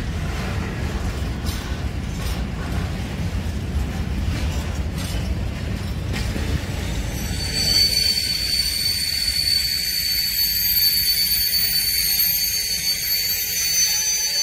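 Freight train wagons rolling past on the rails with a steady low rumble. About halfway through, a high, steady squeal of several tones rises from the wagon wheels and holds.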